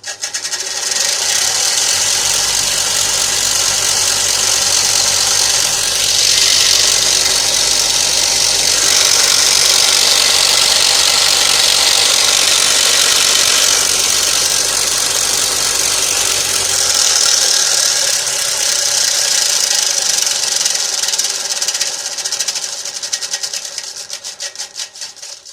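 Raider PRO bench grinder switched on with a sharp click, then running loud and steady with a strong high grinding hiss over a low motor hum. Near the end it is switched off and winds down unevenly.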